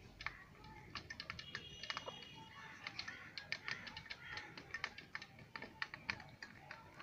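Aseel chickens pecking rice from a metal bowl: rapid, irregular clicks and taps of beaks on the metal, growing denser after about three seconds.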